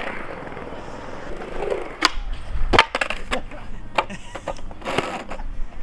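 Skateboard wheels rolling on concrete, then a run of sharp knocks and slaps from about two seconds in as the board and the skater hit the ground in a bail.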